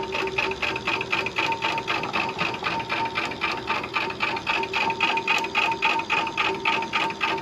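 Volkswagen generator being run as a motor off a battery, turning slowly with an even pulsing whir of about five beats a second over a steady hum. It spins far slower than it should and draws heavily on the battery, which the owner takes for an internal short.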